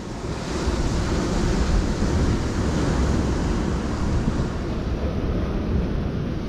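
Wind buffeting the microphone with a loud low rumble, over the steady rush of sea surf; the hiss eases slightly about four seconds in.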